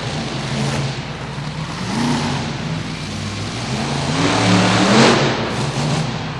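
Monster truck's supercharged V8 engine revving hard in bursts, its pitch climbing about two seconds in and again around four to five seconds in, loudest near five seconds in as the truck drives up onto crushed cars.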